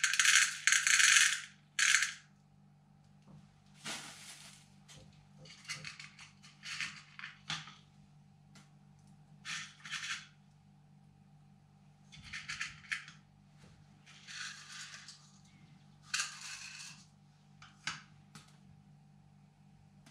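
Whole black peppercorns rustling in a plastic bag and clattering into a small plastic cup on a digital scale, as they are picked out by hand and dropped in. They come as a series of short noisy bursts every second or two, the loudest in the first two seconds.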